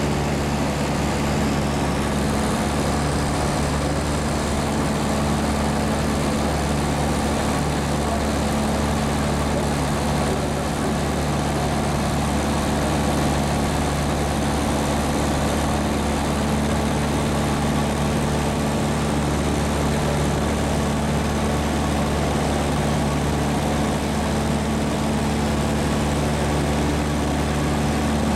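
Light aircraft's engine and propeller droning steadily at cruise, heard from inside the cabin, with a constant low hum under a broad rushing noise.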